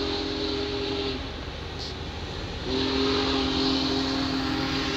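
Steam locomotive's chime whistle sounding several notes at once: a long blast that breaks off just after a second in, then sounds again about a second and a half later and holds. Underneath, the steady rumble of passenger cars rolling by on the rails.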